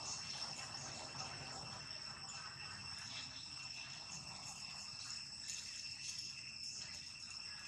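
Steady high-pitched insect drone, faint, with a few soft scattered rustles and ticks.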